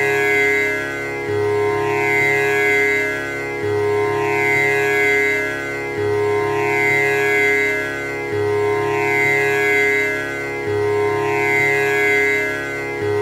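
Tanpura drone: its strings are plucked in a cycle that repeats about every two and a third seconds, each round starting on a deep low note, so the sound never dies away between plucks.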